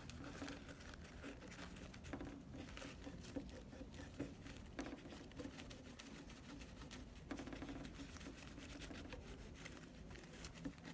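Faint scratchy rubbing and crinkling of a paper towel wiping the PS4's APU chip clean with rubbing alcohol, with small irregular taps and scuffs throughout.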